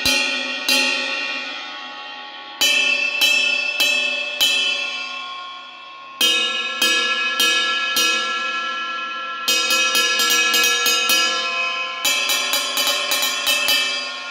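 Paiste Sound Creation New Dimension bell ride cymbals, 22-inch and 24-inch, struck with a wooden drumstick. Single strokes a little over half a second apart are left to ring out. In the second half the strokes turn into quicker runs of ride-pattern taps.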